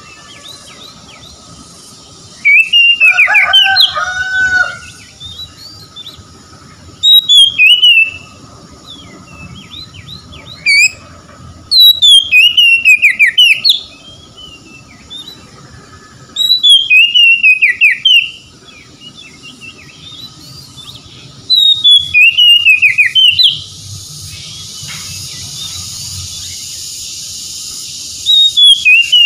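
Oriental magpie-robin singing: loud, whistled phrases of quick notes gliding up and down, in about six bursts of one to two seconds with pauses between. A steady high hiss sets in about two-thirds of the way through.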